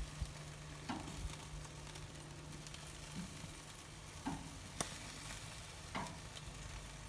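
Chicken drumsticks sizzling steadily on a hot charcoal grill grate, with a few sharp clicks of metal tongs against the grate as the pieces are turned.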